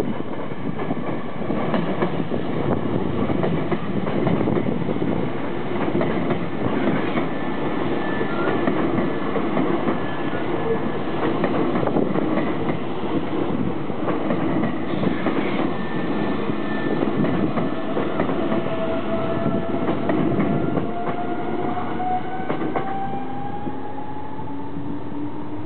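Hankyu 3300 series electric train accelerating from a station stop and passing close by, its wheels clattering over the rail joints. From about two-thirds of the way through, the whine of its resistance-controlled Toyo Denki traction motors rises steadily in pitch as the train gathers speed.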